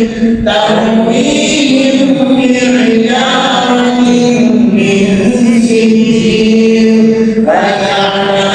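Women chanting Quran recitation aloud in a melodic, unaccompanied style, with long drawn-out notes sliding between pitches. There is a short break for breath about half a second in, and a new phrase begins near the end.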